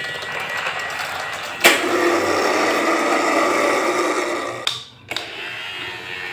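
A small electric motor running with a steady whir, with a sharp click about one and a half seconds in and a brief drop-out near the end.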